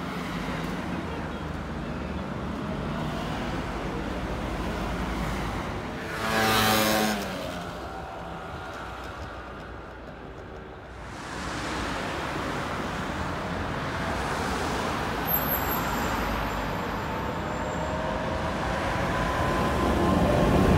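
City street and tram traffic noise. About six seconds in there is a brief loud sound lasting about a second. Toward the end a yellow tram runs close by, with motor tones rising as it moves.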